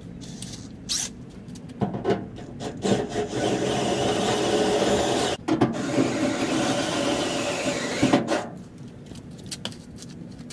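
Steady scraping and rubbing from hand work for about six seconds, broken once briefly midway, with scattered clicks and knocks before and after.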